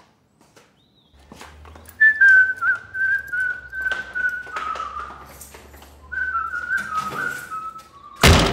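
A man whistling a wavering tune in two phrases, with footsteps throughout. Near the end comes a sudden loud thump.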